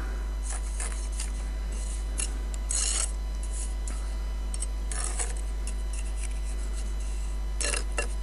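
Steel mason's trowel scraping and spreading mortar over the top of a brick: a few short, rasping strokes a couple of seconds apart, over a steady low hum.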